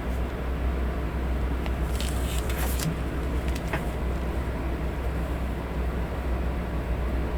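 Electric fan running steadily: an even whooshing noise with a low hum underneath. A few brief, faint rustles come about two to three seconds in.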